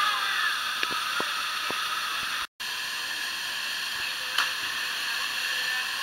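Small waterfall pouring into a rock pool: a steady rushing hiss of falling water. The sound drops out completely for an instant about two and a half seconds in.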